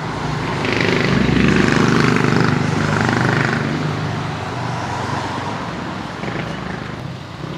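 Road traffic, with a motor vehicle passing close by. It swells to its loudest a second or two in, then fades back to a steady traffic hum.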